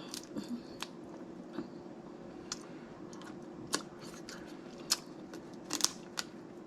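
Close-miked eating of snow crab legs: chewing and mouth sounds with sharp clicks and cracks of shell and meat, about one every second.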